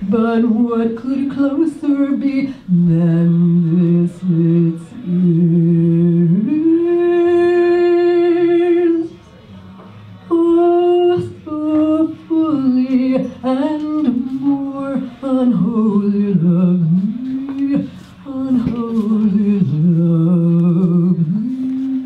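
A woman's voice singing unaccompanied into a microphone, holding notes that step between a few pitches, with one long held note that breaks off about nine seconds in before the singing resumes.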